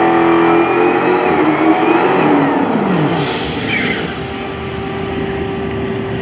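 Dodge Challenger SRT Hellcat's supercharged V8 revving hard for a drag-strip burnout, the revs rising and falling over the first three seconds, then held at a steady drone while the rear tyres spin and smoke.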